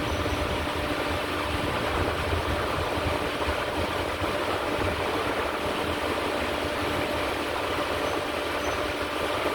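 Steady mechanical drone with a constant hum at a fixed pitch, like an engine or machine running.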